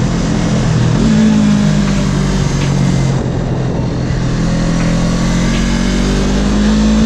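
Yamaha R3 motorcycle's parallel-twin engine running at freeway speed under steady throttle, its pitch rising a little about a second in and again near the end, with wind rushing over the microphone.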